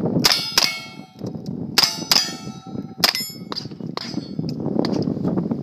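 Revolver shots fired in a quick string at steel targets, each crack followed by the ringing clang of a struck steel plate.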